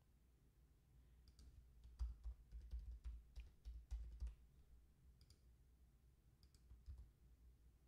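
Faint clicks of a computer keyboard and mouse: a quick run of keystrokes typing a word about two to four seconds in, with a few scattered clicks after.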